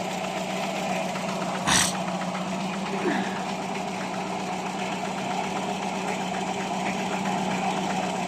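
Carbureted car engine idling steadily after a full carburetor service, its idle more stable though not perfect. A single sharp click stands out about two seconds in.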